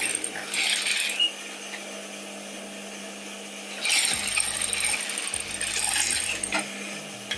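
Domestic sewing machine stitching a shoulder seam in short start-stop runs: two near the start and two more from about four seconds in, with a metallic clatter.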